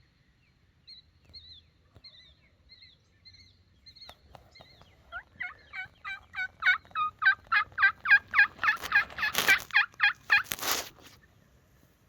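Turkey calls: faint short notes at first, then from about five seconds in a long, even run of loud yelp-like notes, about three a second, growing louder. Two brief rushing bursts come near the end.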